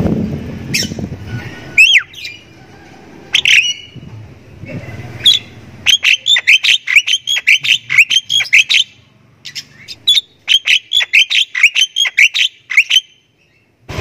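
Javan myna (jalak kebo) calling: a few separate squawks and a gliding whistled note, then two fast runs of short repeated chattering notes, about five a second, starting around six and ten seconds in and stopping about a second before the end.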